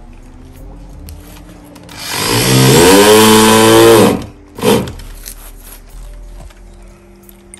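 Corded electric drill run into a cabinet panel. The motor speeds up over about half a second, runs at full speed for about two seconds and stops, then gives one short second burst.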